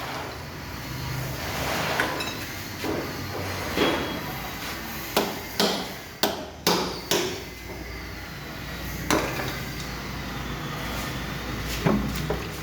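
Hammer blows, about ten irregular strikes, with a quick run of several in the middle.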